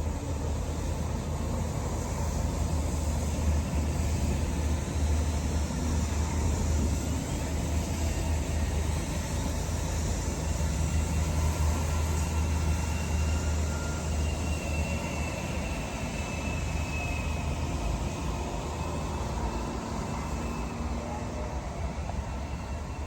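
Heavy vehicle engine rumbling steadily, with a faint whine rising out of the street noise in the middle.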